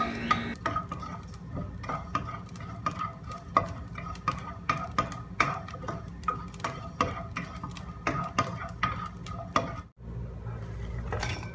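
A spatula stirring and scraping cumin, coriander and fennel seeds as they dry-roast in a pan, making a busy, irregular run of scrapes and seed clicks. It cuts off abruptly shortly before the end, leaving a low hum.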